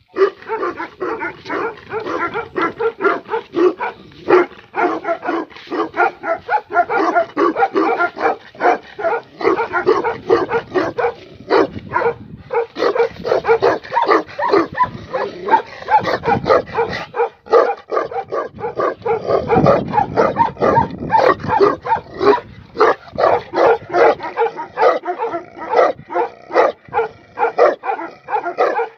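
Tibetan mastiff barking without a break, several barks a second.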